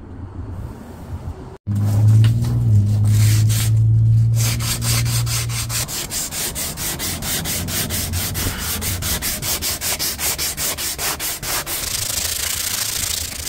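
Sandpaper rubbed by hand along a weathered wooden stick, in quick even back-and-forth strokes of about four a second. A low hum sits under the first few seconds of the sanding.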